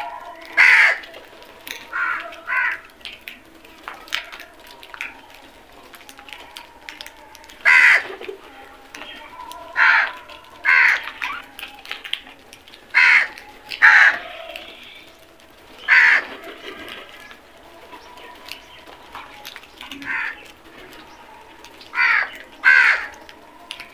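House crows cawing: about a dozen loud single caws and quick pairs of caws, spaced unevenly a second to several seconds apart.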